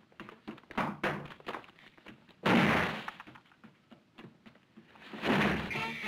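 A single heavy thud about two and a half seconds in, with lighter knocks before it. A second thud comes near the end, just as lively music starts.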